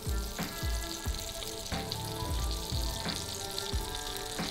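Hake fillet sizzling in a hot frying pan, a steady hiss, over background music with a regular beat.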